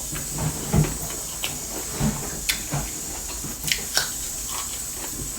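Close-up eating sounds of a dal bhat meal: irregular chewing and small mouth clicks with soft taps, over a steady faint hiss.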